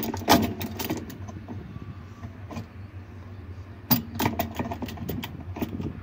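Steel locking pliers clinking and scraping against a stripped agitator bolt and the plastic agitator shaft as they are worked into a grip: sharp metallic clicks, a bunch in the first second and another from about four seconds in.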